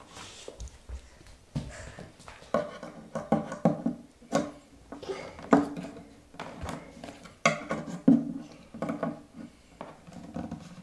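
Hand screwdriver working a screw at the bottom joint of a white IKEA Kallax shelf's panels, with irregular clicks, knocks and scraping from the tool and the hollow board.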